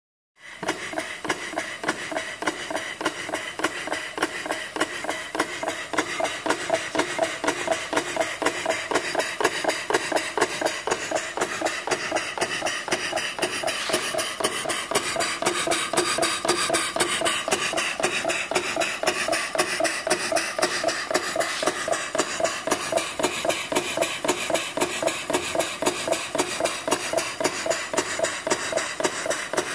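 Model stationary steam engine driving a water pump, running on compressed air: a rapid, even beat of exhaust puffs and clattering valve gear that starts about half a second in and keeps a steady pace.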